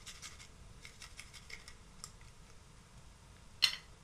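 Garlic clove rubbed on a small fine metal hand grater: a quick run of light rasping strokes that thin out after about two seconds. Near the end comes a single sharp clack as the grater is set down on a glass plate.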